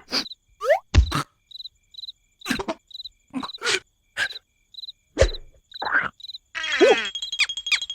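Crickets chirping steadily, about two short high chirps a second, under a string of short cartoon sound effects: knocks and thumps, and a quick rising squeak near the start. Music begins near the end.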